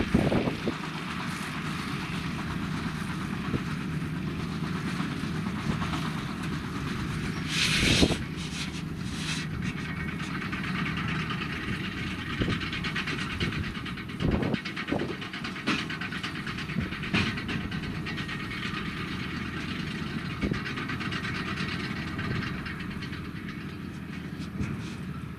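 Diesel farm machinery running steadily, with scattered clanks and knocks and a short burst of hissing noise about eight seconds in.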